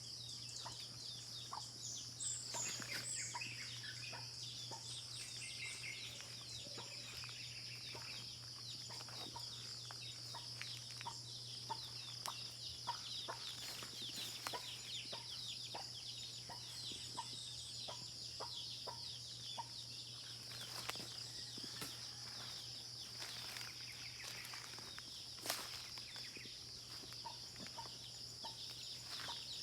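Countryside morning ambience: a steady high-pitched drone, with many short calls scattered through it and a few bird chirps near the start. A steady low hum sits underneath.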